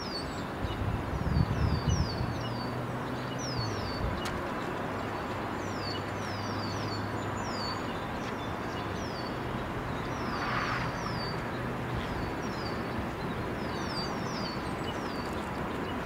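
Birds chirping over and over in quick high down-slurred notes, often two or three at a time. Underneath is a low steady hum that stops about twelve seconds in.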